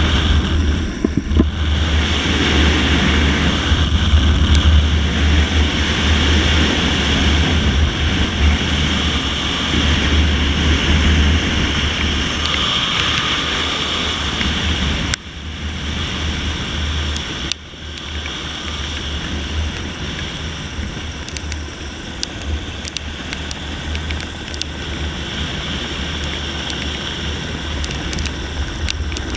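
Steady rush of wind on the microphone over the deep drone of the helicopter overhead, heard from a soldier suspended on a SPIES rope beneath it. The level drops suddenly about halfway through, and again a couple of seconds later.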